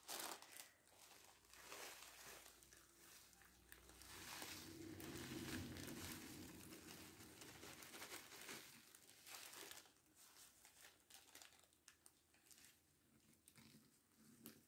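Faint crinkling of a thin plastic bag being handled and shaken, with small clicks and rustles as dry clay chips drop onto a bowl of wet clay mixture. A low hum rises in the middle for a few seconds.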